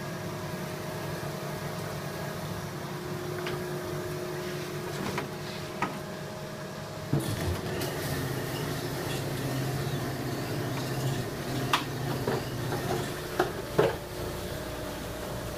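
Steady hum of running shop machinery that changes character about halfway through, with a few short sharp clicks and light clatters, most of them near the end.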